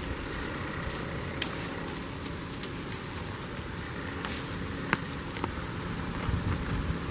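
A goat browsing in a shrub, tearing at and chewing leaves and twigs: a few sharp snaps and crunches, the loudest about one and a half seconds and five seconds in, over a steady background hiss.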